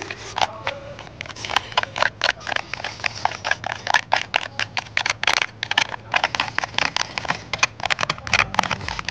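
Chopsticks rapidly clicking and scraping against a plastic takeaway box as rice with tomato and scrambled egg is shoveled straight into the mouth. The sharp, irregular clicks come several a second throughout.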